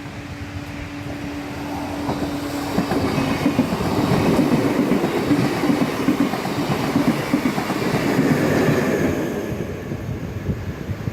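Train passing close by at a station platform, its wheels clattering over the rail joints. It grows louder over the first few seconds, stays loud through the middle and eases slightly toward the end.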